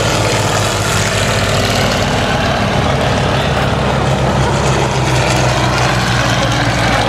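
Piston propeller aircraft flying a low pass, its engine making a loud, steady drone that holds one pitch.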